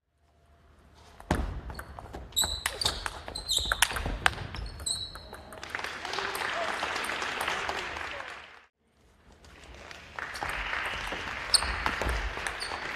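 Table tennis rally in a gym: quick sharp clicks of the plastic ball on bats and table, with short high squeaks of shoes on the wooden floor. Between rallies there are stretches of hall noise and voices.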